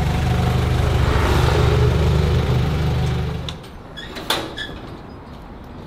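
A Mitsubishi pickup truck's engine idling steadily, then switched off about three and a half seconds in. A single sharp car-door knock follows a moment later, with faint bird chirps.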